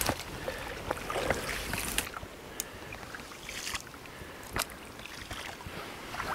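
Oars of an inflatable boat rowing through shallow water: irregular splashes and knocks of the oar strokes over a soft rustling wash.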